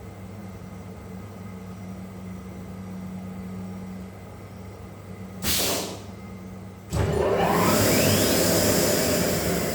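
CNC router with an automatic tool changer: a steady low hum, a short burst of compressed-air hiss about five and a half seconds in, then from about seven seconds a loud noise with a rising whine as the spindle spins up and runs.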